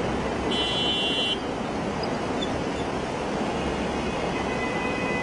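Heavy rain and street traffic, a steady wash of noise from rain and tyres on a waterlogged road. A brief high-pitched vehicle horn toot sounds about half a second in.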